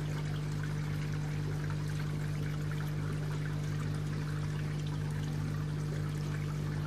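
Water splashing and trickling steadily into a garden koi pond, with a steady low electrical hum underneath.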